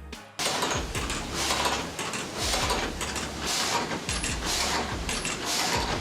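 Sawmill machinery running: a rough rasping noise that starts suddenly and pulses about twice a second over a low hum, like a reciprocating saw's strokes.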